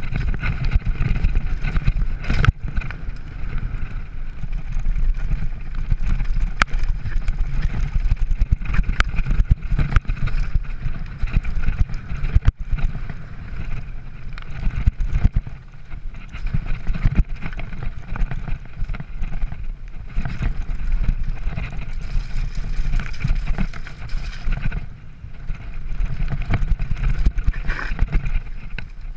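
Mountain bike riding fast down a rocky gravel trail: a continuous rumble of tyres and wind on the microphone, with scattered rattles and knocks from the bike over the stones.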